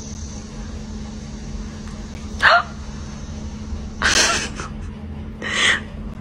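Three short, sharp animal calls, about a second and a half apart, over a steady low hum.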